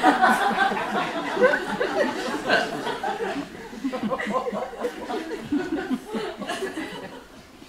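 Several people laughing and chuckling together, with some murmuring, the laughter dying down about halfway through.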